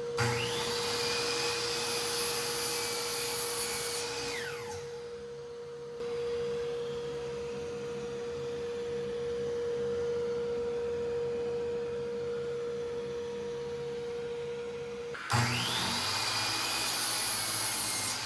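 Delta Cruzer 10-inch miter saw motor starting with a fast rising whine, running for about four seconds and winding down, then starting and winding down again near the end. A steady hum, from the dust extractor pulling on the saw's dust chute, runs under most of it and stops as the second start comes in.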